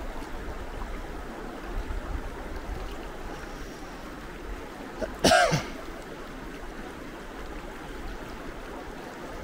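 Steady rushing of flowing river water, the Gallatin River. About five seconds in, a person makes one short voiced sound, like a throat-clear.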